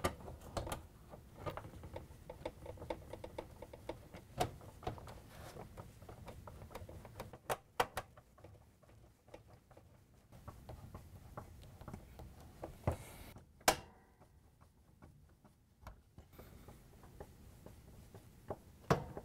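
Phillips screws being driven by hand with a screwdriver to fasten a dishwasher's dispenser assembly into the door: faint, irregular light clicks and ticks, closer together a few seconds in, with a few sharper clicks.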